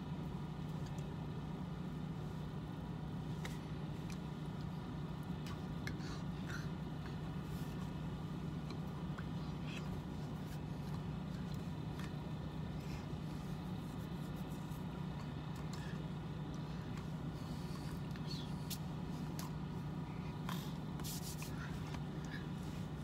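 Steady low hum of a running vehicle, heard from inside the cab, with faint scattered clicks and rustles from signing hands and clothing.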